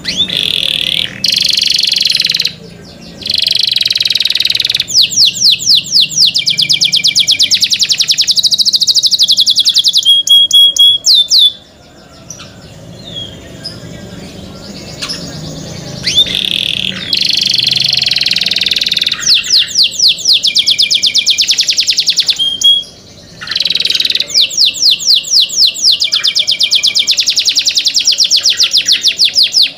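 Caged canary singing loud, long song phrases of rapid trills and held high whistled notes, with a pause of a few seconds about halfway through and a brief break later.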